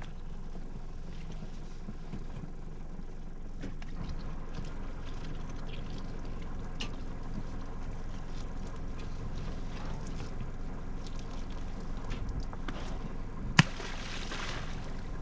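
Starfish tossed back overboard from a crab pot: scattered light knocks, then a sharp knock and a brief splash into the water near the end, over a steady low motor hum.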